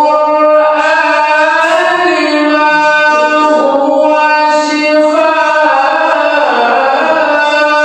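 Melodic Quran recitation by a male qori: one high, sustained voice holding long notes with ornamented turns and slides between pitches.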